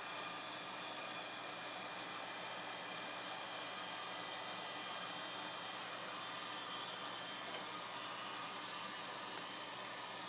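Ace heat gun running on its low setting, a steady blowing hiss, as it heats a phone's glass to soften the adhesive beneath.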